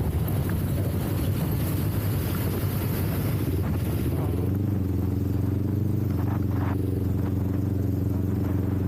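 Kawasaki Ninja 400's parallel-twin engine running while riding, picked up by the action camera's internal microphone with heavy wind noise. For about the first four seconds wind rumble smears over the engine, then the engine's steady note comes through clearly.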